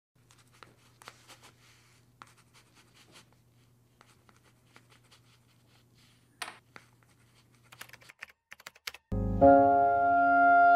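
Faint scratching and clicking of a ballpoint pen writing on a notebook page, over a low steady hum. About nine seconds in, loud music starts and is the loudest sound.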